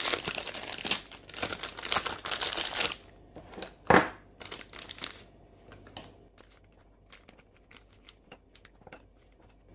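Thin plastic piping bag crinkling loudly as it is opened and handled for about three seconds, then a single sharp knock about four seconds in, followed by faint scattered rustles and taps as melted white chocolate is spooned into the bag.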